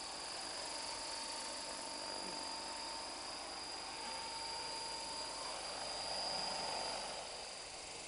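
Large radio-controlled scale model of an Aérospatiale Lama helicopter, its rotor and drive running with a steady high whine while it hovers low. The sound swells about six seconds in, then eases as the model settles onto the grass near the end.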